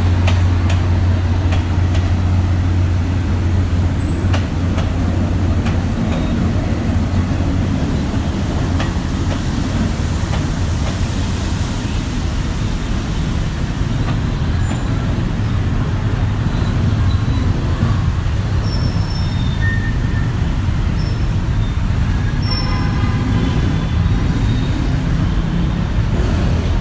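A diesel passenger train running, with a steady heavy low rumble of engine and wheels. A brief high-pitched tone sounds near the end.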